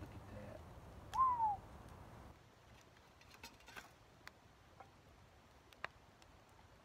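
A bird gives one short, clear call that rises slightly and then falls in pitch, about a second in. A few faint light clicks follow.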